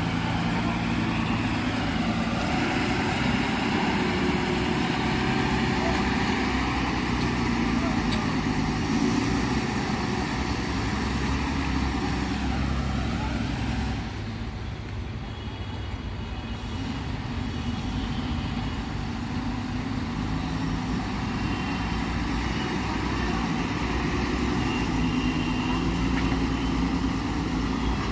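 Heavy diesel machinery running steadily, with a slight drop in loudness about halfway through; voices are heard in the background.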